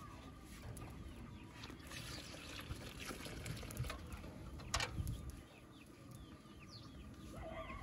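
Hens clucking and small birds chirping, while water is poured from a steel bucket into a bowl of flour for kneading dough. A single sharp knock about five seconds in, as the metal bucket is set down.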